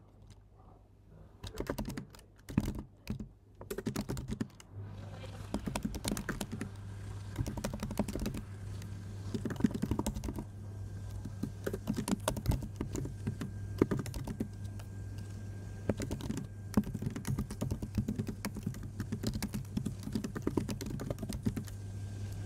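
Typing on a computer keyboard: a run of quick, uneven keystrokes with short pauses. A low steady hum sets in underneath about five seconds in.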